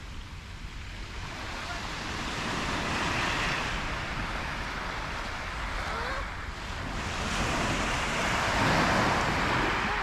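Small Mediterranean waves breaking and washing up a sand-and-pebble shore. The wash swells about three seconds in and again, louder, near the end.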